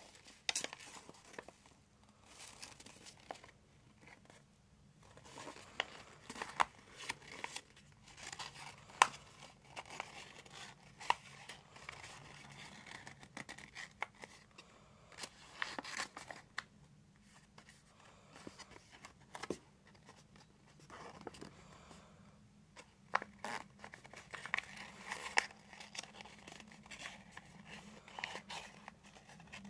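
Sheet of origami paper being folded by hand into a box: irregular rustling and crinkling, with crisp clicks as creases are pressed down.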